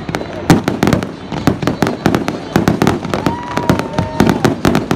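Aerial fireworks shells bursting in a rapid run of sharp bangs and cracks, several a second, loud and close together.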